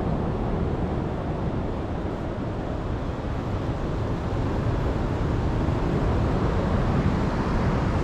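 Steady wind noise on the microphone, an even rush heaviest in the low end.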